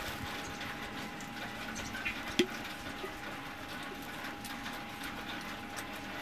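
Faint clicks and smacks of people chewing pizza over a steady background hiss with a faint steady hum, and one sharp click about two and a half seconds in.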